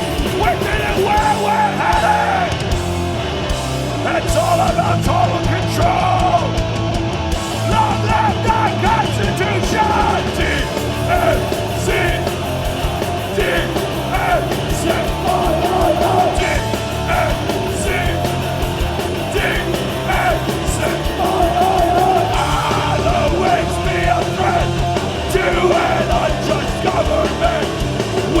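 Hardcore punk band playing live at full volume: distorted guitars, bass and drums with shouted vocals over them.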